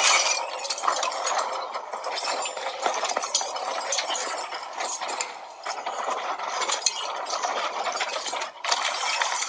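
Heavy chains clanking and rattling as they are hauled in, a dense stream of metallic clinks and rattles with a short break near the end.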